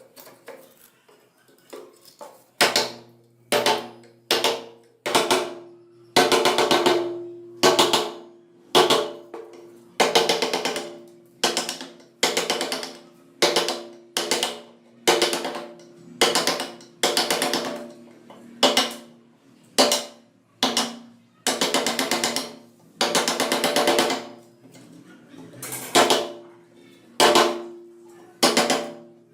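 Repeated hand-tool strokes on the steel axe head, irregularly spaced at about one a second, each starting sharply and fading away, with some longer strokes lasting over a second.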